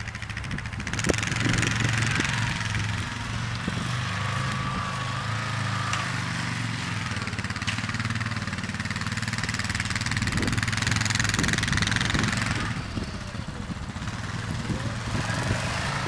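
ATV engine running at a steady, low speed, with a hiss layered over it from about a second in until about three-quarters of the way through.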